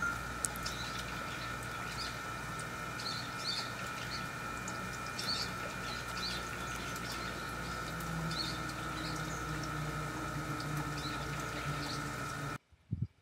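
Outdoor ambience: short high chirps of small birds every second or so over a steady high-pitched hum and a low rumble, cutting off suddenly near the end.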